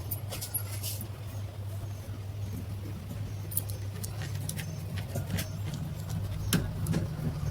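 Electric table fan's motor running with a steady low hum, with scattered light clicks.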